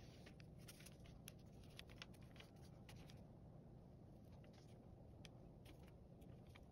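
Faint pen scratching on folded paper: short, irregular strokes and taps as the outline of a tiger's body is drawn.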